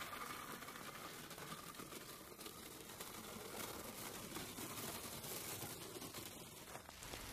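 Faint, even scratching of a long-handled rake drawn through the fine gravel of a Japanese rock garden.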